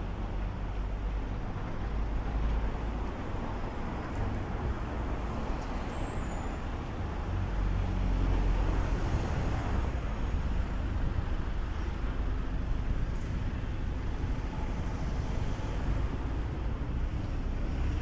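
City street traffic: motor vehicles passing with a steady low rumble and hiss, growing a little louder about eight seconds in.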